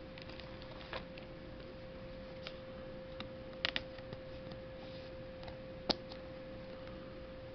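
Faint, scattered clicks and taps from handling Pokémon trading cards and their packs, including a quick double click midway and a sharper single click near the end, over a steady faint hum.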